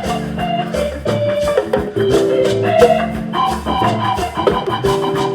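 Instrumental music intro: keyboard or organ chords over a bass line and a steady drum beat.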